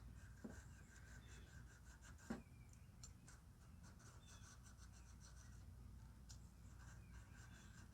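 Near silence with a few faint small ticks and one light tap about two seconds in: hand tools working on a small engine's valve adjustment, with a feeler gauge checked for drag.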